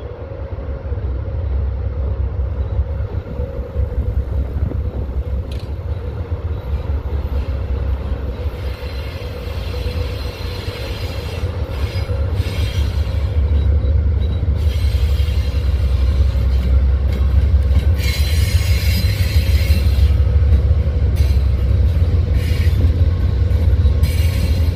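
Amtrak GE Genesis diesel locomotives passing at low speed: a deep engine rumble that grows louder as they come near, with bursts of high-pitched wheel squeal from the curving track, loudest about two-thirds of the way through.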